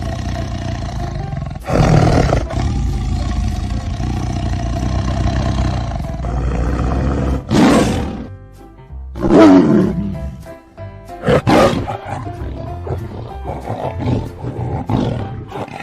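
Tiger roaring several times over background music. The roar about nine seconds in falls in pitch.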